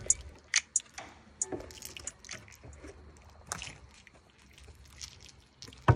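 Scattered light clicks, taps and rustles close to the microphone, irregular and fairly quiet, with a sharper click now and then.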